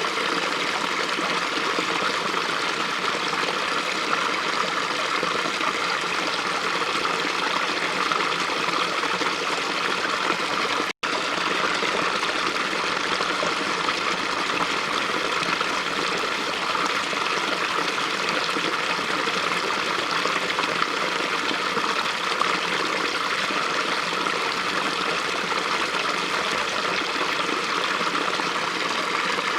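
Small stream babbling and trickling over rocks, a steady rush of running water. The sound cuts out for an instant about eleven seconds in.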